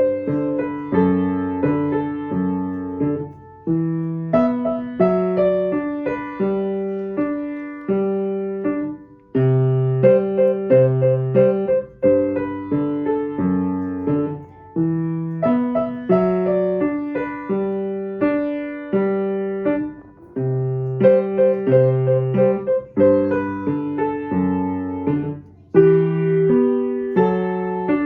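Background music: solo piano playing a gentle melody over repeated chords, each note struck and fading away.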